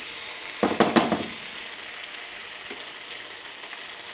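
Chicken wings sizzling in a pan of butter-based barbecue sauce, a steady frying hiss, with a brief louder sound about a second in.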